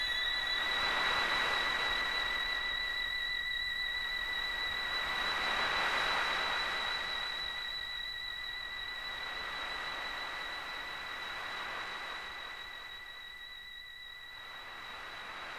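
Electronic music: a steady, high whistling tone is held over slow swells of hissing noise that rise and fall about every four to five seconds, the whole slowly getting quieter.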